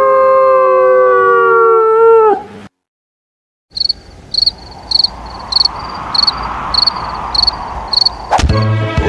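Cartoon music score. A held wind-instrument chord bends downward and cuts off about two seconds in. After a second of silence comes a steady high ticking, about every 0.6 s, over a hiss that swells and fades, and a sharp hit near the end launches a bouncy tune.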